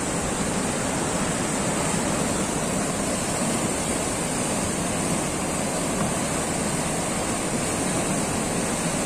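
Whitewater rushing through an artificial canoe-slalom channel: the loud, steady noise of churning rapids with no let-up.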